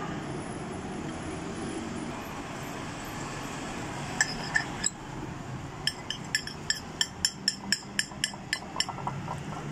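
Metal fork clinking against a ceramic plate while stirring and tossing noodles. A few scattered clinks start about four seconds in, then a quick run of about four or five a second.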